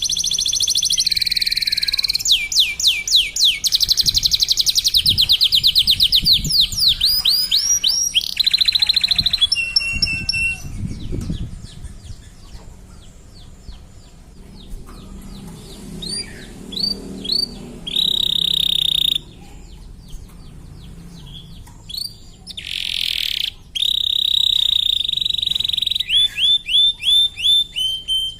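Domestic canary singing a long, varied song: fast rolling trills of rapidly repeated notes alternate with long held whistled notes. There is a quieter, sparser stretch about halfway through before the trills and held notes resume.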